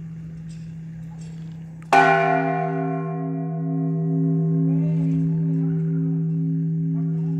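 Church bell struck once about two seconds in, then ringing on, its bright overtones fading over a few seconds while the deep hum keeps sounding with a slow wavering pulse.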